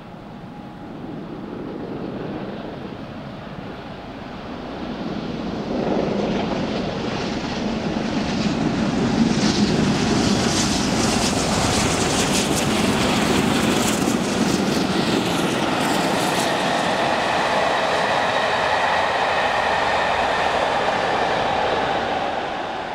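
Double-headed steam train, two BR Standard 'Britannia' class Pacifics hauling carriages, passing at speed. The sound grows as the train approaches and turns into a fast clatter of wheels over the rails, then a steady rumble as the carriages go by. It fades away near the end.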